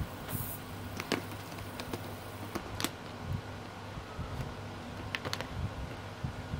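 A few small, sharp clicks and light handling noises as fingers work a rubber tyre onto a tiny metal wheel hub on a micro servo's axle, over a steady low hum.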